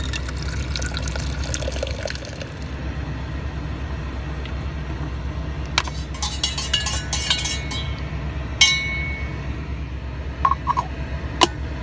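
Liquid being poured into a glass French press coffee maker, followed by several sharp glass clinks and taps. A steady low engine hum runs underneath.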